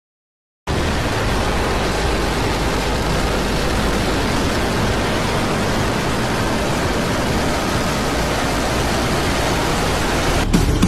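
Steady rocket-engine roar, a dense, even rush of noise that starts about half a second in after a moment of silence.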